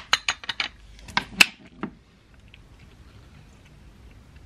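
Quick run of sharp clicks and knocks from a cat's water bowl and a plastic water bottle being handled to refill the bowl. The clicks stop about two seconds in.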